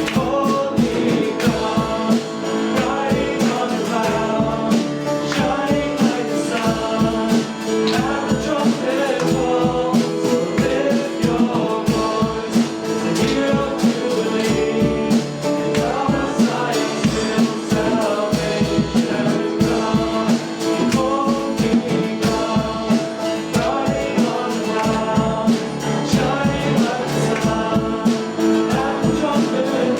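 Church worship band playing a song with singing over guitar and a steady drum beat.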